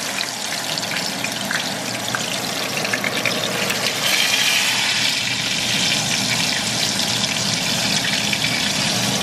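Tempeh slices frying in hot oil in a pan: a steady sizzle that grows louder about four seconds in.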